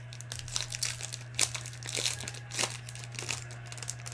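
Trading card packs and cards being handled, with irregular crinkling and crackling of wrappers over a steady low electrical hum.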